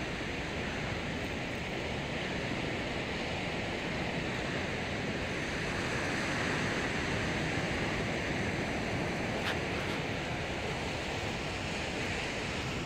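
Steady wash of sea surf against a stone jetty, with wind blowing on the microphone.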